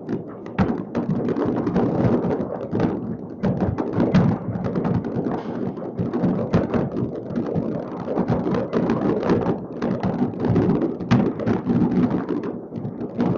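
Many fireworks going off across a city at once: a continuous din of overlapping bangs, booms and crackles, with sharper single bangs standing out now and then.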